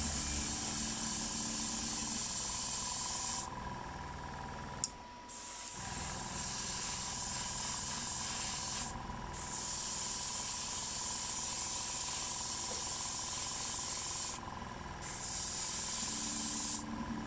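Airbrush spraying primer in long hissing passes, with short pauses between them about 4, 9 and 15 seconds in, at an air pressure of 1.5. A single sharp click near 5 seconds in.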